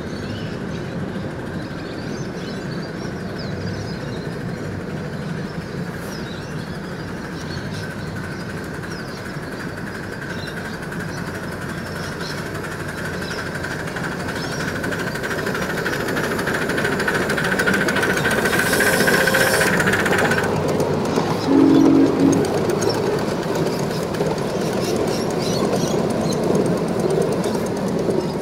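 Ride-on miniature steam locomotive 5717 running with its passenger train, growing louder as it approaches. A steady high tone cuts off suddenly about two-thirds of the way in, and a brief low whistle-like toot follows just after.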